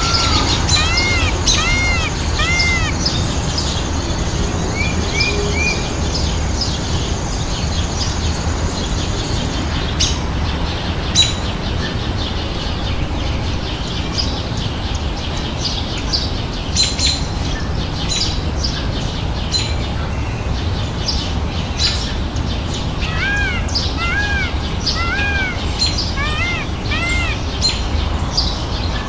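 Birds chirping in short, arched, repeated notes, in runs near the start and again through the last few seconds, with scattered faint clicks in between, over a steady low background rumble.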